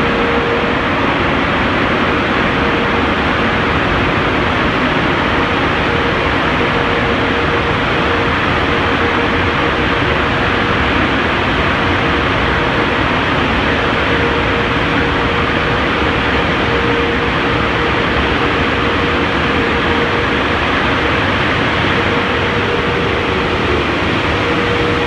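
Bank of tunnel car-wash blower dryers running at full power: a loud, steady rush of air with a constant whine from the fans.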